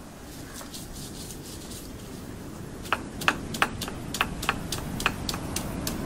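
Stone roller crushing and grinding ingredients on a flat stone grinding slab: a low grinding rub, with a run of sharp clicks and cracks about three a second over the second half.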